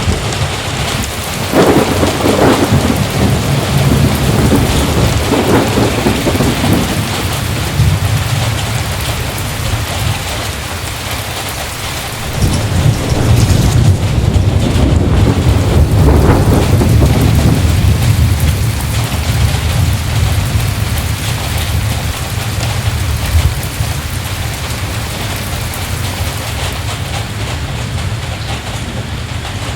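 Heavy rain falling steadily, with two long rolls of thunder, one starting about two seconds in and another about twelve seconds in.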